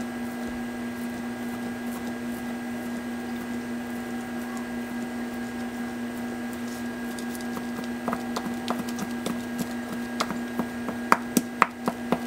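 Chef's knife chopping soft vegetarian sausage links on a plastic cutting mat: light tapping that turns into sharper, louder knocks from about eight seconds in, the loudest few near the end. A steady low hum runs underneath.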